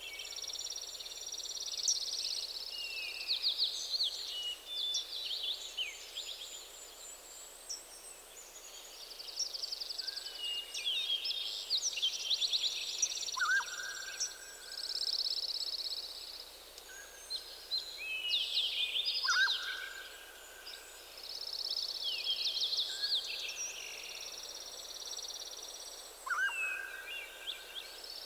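Several songbirds singing over one another: fast trills and warbling phrases, with a lower, plainer whistled note that comes back every few seconds.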